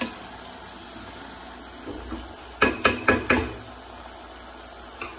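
Vegetables sizzling steadily in a frying pan. About two and a half seconds in, a wooden spoon strikes the pan four times in quick succession, each a sharp clatter.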